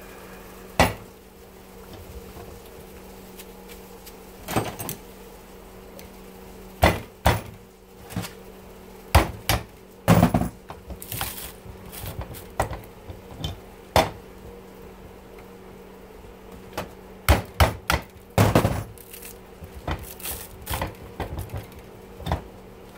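A string of irregular sharp metal knocks and clanks as a dishwasher motor's copper-wound stator is struck and pried against a steel bench vise with a screwdriver to strip out the windings. A faint steady hum runs underneath.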